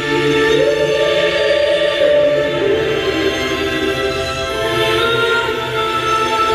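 Background music of slow, sustained choral singing, with voices holding long notes that change pitch every second or two.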